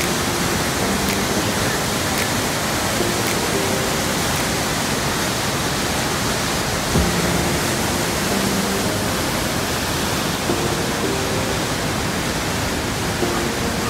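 Whitewater rapids of the Kicking Horse River rushing over and around rocks: a loud, steady wash of water noise.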